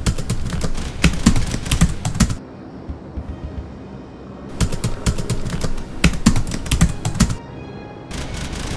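Computer keyboard typing sound effect: rapid runs of key clicks that pause about two and a half seconds in and again about seven and a half seconds in, over a faint music bed.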